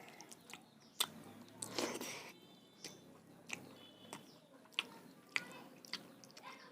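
A person chewing and biting food, with a row of sharp mouth clicks about a second apart and a louder noisy burst near two seconds in.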